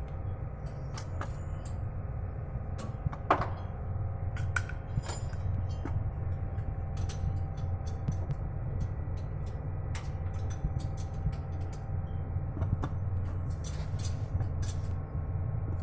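A steady low mechanical hum of something running, with frequent light metallic clinks and clicks over it and one sharper clink about three seconds in.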